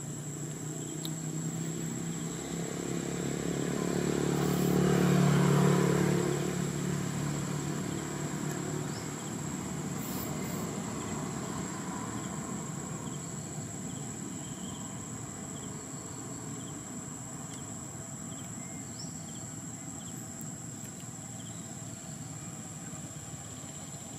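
A motor vehicle's engine passes by, growing louder to a peak about five seconds in and then slowly fading away.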